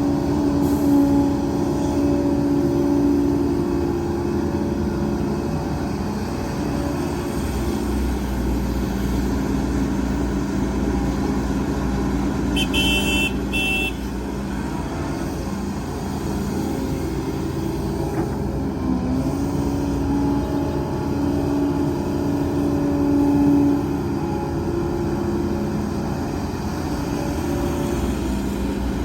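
Heavy diesel machinery running steadily: excavator and dump truck engines, the engine note swelling and easing with load. A brief high two-part beep sounds about halfway through.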